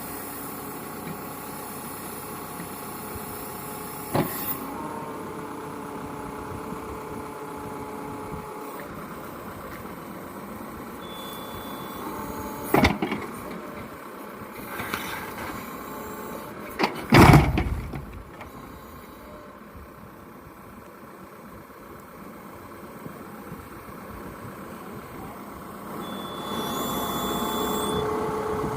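Excavator diesel engine running steadily, with a few sharp knocks and one loud blast lasting about a second, midway through, as a buried irrigation pipe bursts. Near the end the engine gets louder.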